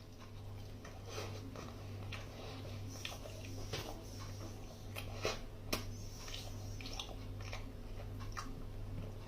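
A person chewing a chicken nugget dipped in sauce: irregular wet mouth clicks and smacks over a steady low hum.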